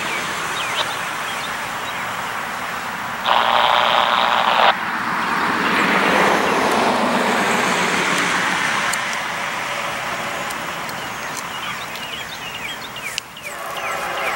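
Road traffic passing, a steady rush of vehicles that swells and fades over several seconds. A single horn blast sounds for about a second and a half, about three seconds in.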